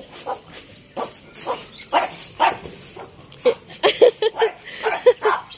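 Goat hooves knocking on the wooden slat floor and ramp of a goat house, sharp irregular knocks, with a quick run of short, high animal calls in the second half.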